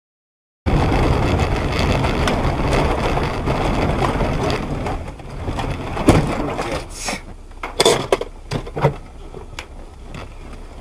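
In-car dashcam audio: loud road and wind noise, then a string of sharp bangs and knocks from a vehicle collision. The loudest bang comes about six seconds in.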